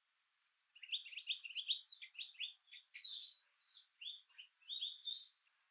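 Songbirds twittering in rapid runs of short, high chirps, with a faint hiss beneath.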